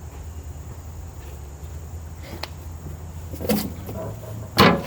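Two sharp knocks about a second apart near the end, the second louder, over a steady low hum.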